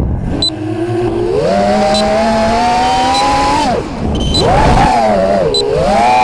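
Racing quadcopter's four Racerstar 2205 2300 kV brushless motors with DAL T5045C props whining, the pitch following the throttle. It climbs about a second in and holds, drops sharply near four seconds, then rises and falls twice more.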